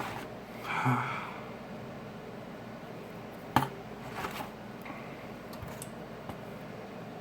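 Small handling noises from hand work on a phone at a repair bench: a short rustle about a second in, one sharp click near the middle, and a fainter scrape just after, over a steady hiss.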